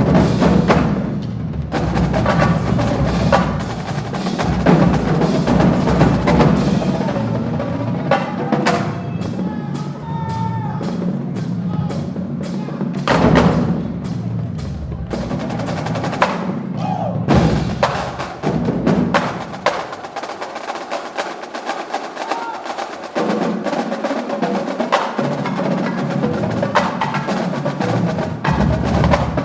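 A marching drumline playing a cadence: rapid snare strokes and rim clicks over booming bass drums. The bass drums drop out for a few seconds past the middle, leaving the snares and clicks.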